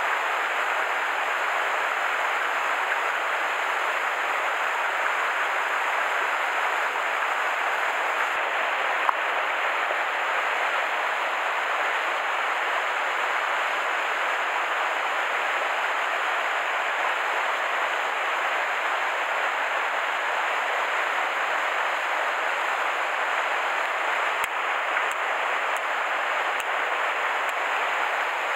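Steady rush of a mountain stream's flowing water, an even noise that does not change, with a single brief click about nine seconds in.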